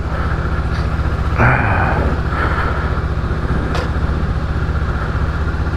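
2018 Honda Gold Wing's flat-six engine idling steadily, with a brief rustling noise about a second and a half in.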